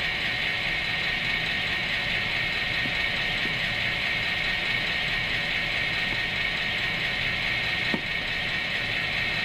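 HO scale model train running slowly along the track: a steady whirr of its electric motor and gears, with a single click near the end.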